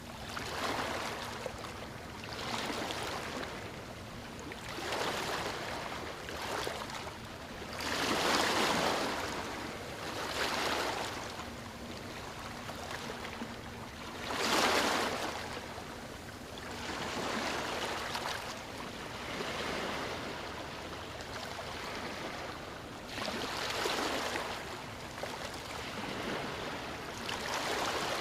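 Ocean waves breaking and washing up a beach, the surf swelling and falling back every two to three seconds, with two bigger breakers about a third of the way in and about halfway through.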